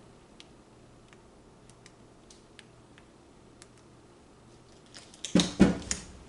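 A few faint ticks, then near the end a quick cluster of loud thumps as a large wooden-framed stretched canvas is set back down flat on the table after being tilted.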